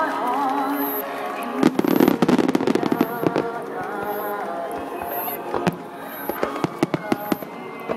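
Aerial fireworks bursting in rapid succession: a dense cluster of sharp bangs and crackles about one and a half seconds in, then scattered single bangs.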